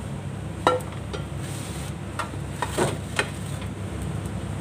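Kitchenware clattering: a handful of knocks and clinks of pots, dishes and utensils, the loudest about a second in with a short metallic ring, over a steady low hum.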